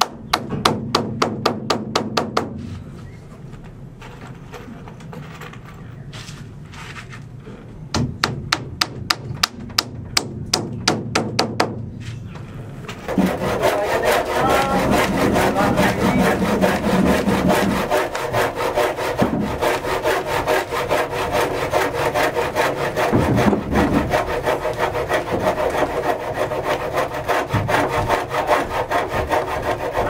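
Handsaw cutting through a wooden board, running as a steady rasping scrape of quick back-and-forth strokes from about 13 seconds in. Before that come two runs of rapid, sharp, evenly spaced clicks, at the start and again around 8 to 12 seconds.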